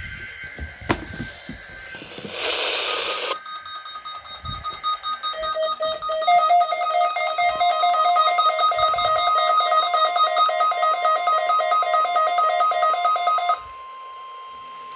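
A weather-alert radio tone alarm: a short burst of static, then rapid pulsing two-tone alarm beeps that cut off suddenly after about eight seconds. A fainter steady warning tone runs under the beeps and holds on after they stop.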